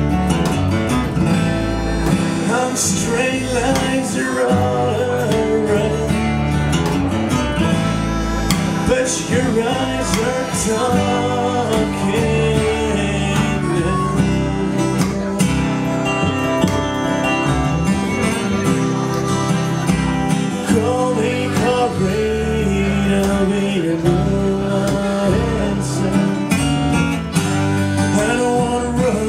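Acoustic blues band playing an instrumental break: a harmonica carries a bending melody over strummed acoustic guitar and a walking double bass.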